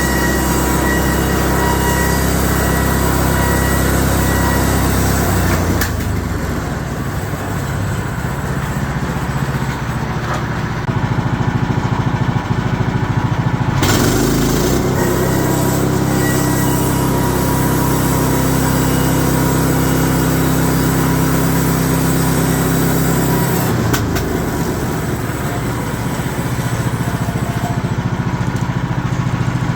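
Small gas engine of a portable bandsaw sawmill running steadily. Its note changes abruptly a few times.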